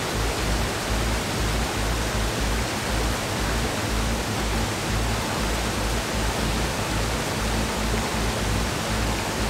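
Mountain stream and waterfall in a gorge rushing hard beside a footbridge: a loud, steady rush of water with a low rumble underneath.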